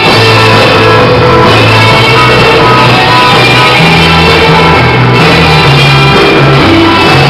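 A rock band playing: guitars over a bass line that steps between notes, steady and loud.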